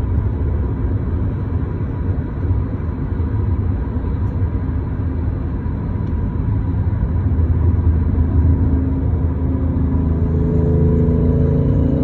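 Steady low rumble of road and engine noise heard from inside a moving car. A few low steady tones join in during the last few seconds.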